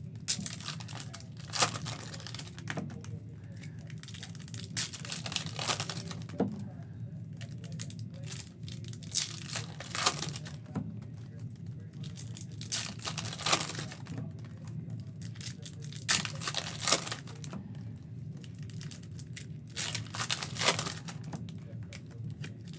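Topps foil trading-card pack wrappers crinkling and being torn open, with the cards inside handled and shuffled; sharp irregular crinkles come every second or so.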